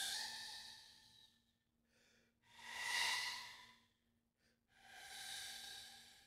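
Wooden transverse flute played with breathy, air-heavy tones, typical of contemporary extended technique: a note fading out, then two more quiet swelling notes, each mostly rushing air with a faint pitch, separated by short pauses.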